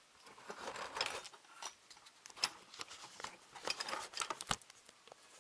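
Handling noise: rustling with scattered light clicks and small knocks as vinyl figure parts are held and shifted by hand, with one low knock about four and a half seconds in.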